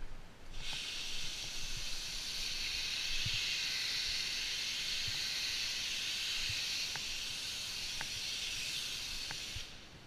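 A steady hiss, like gas or air escaping under pressure, that starts about half a second in and cuts off abruptly near the end, with a few faint ticks over it.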